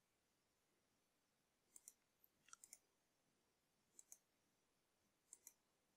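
Near silence with a few faint computer mouse clicks, some in quick pairs.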